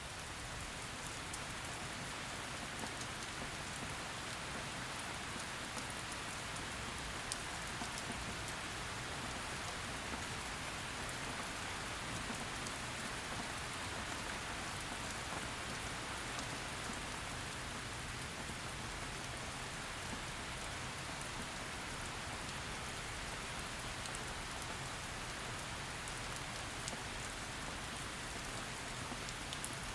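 Heavy rain falling steadily, a dense hiss of drops with occasional sharper drip ticks.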